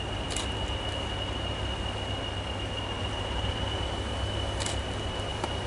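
Pair of Class 20 diesel locomotives approaching in the distance: a low, steady rumble with a thin, steady high whine over it. Two faint short chirps, one just after the start and one near the end.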